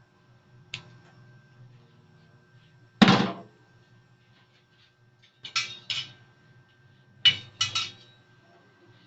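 Cookware and utensils knocking and clattering in a kitchen: a small click, then one heavy knock about three seconds in, then two pairs of sharper metallic clatters.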